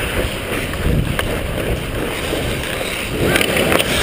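Ice skates scraping and gliding on rink ice, with wind buffeting a helmet-mounted action camera's microphone as the wearer skates, and a few sharp clicks about a second in and again near the end.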